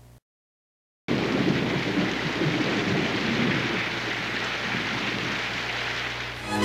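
Thunder rumbling over heavy rain, a movie storm sound effect, starting abruptly about a second in after a brief dropout.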